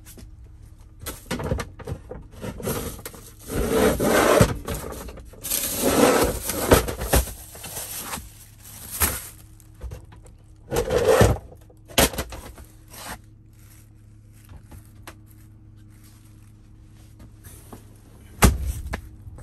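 Irregular rubbing and scraping as clutter and a plastic trash bag are handled and shifted about in a truck cab, dense for the first thirteen seconds or so, then a single sharp knock near the end.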